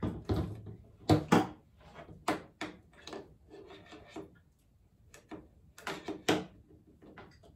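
Handling knocks and clatter: a heavy rug-tufting gun set down on a table, then its coiled power cord handled and unwound, giving a run of irregular clicks and knocks, loudest about a second in.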